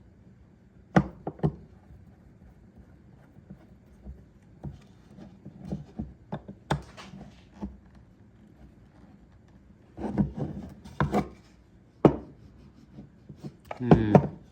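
Scattered knocks, clicks and clunks of parts and tools being handled and set down while a router base plate is fitted to a small cordless router, with a cluster of knocks about ten seconds in.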